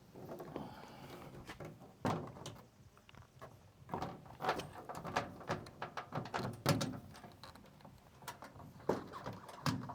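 Irregular knocks, clicks and clanks of hand tools and metal parts being worked inside a 1968 Chevy C-10's door.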